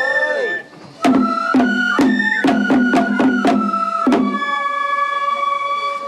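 Japanese festival music: drum strikes, about nine over three seconds and coming faster in the middle, under a high flute playing long held notes.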